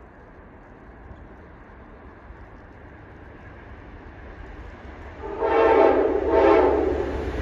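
Amtrak train's locomotive horn sounding two blasts about five seconds in, the first slightly longer. Beneath them is the slowly growing rumble of the approaching train.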